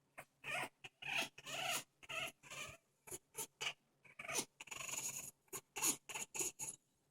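African grey parrot making strange sounds: a rapid string of short clicks and longer rasping, breathy calls, with brief pauses between them.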